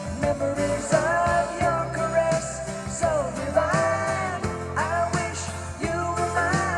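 A 1980s country-rock band recording played back through a two-way bookshelf speaker with hanji (Korean paper) cones: a held, gliding lead melody over bass and drums.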